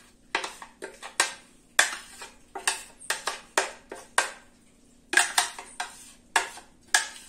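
A spoon scraping and knocking around the inside of a blender jar, making irregular sharp clacks two or three times a second with a short pause about four seconds in, as ground green-corn dough is scraped out.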